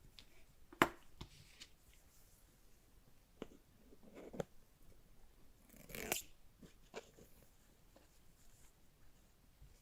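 Hands handling smartphone packaging: a sharp tap about a second in, then a few lighter clicks and taps, and a short rustle about six seconds in.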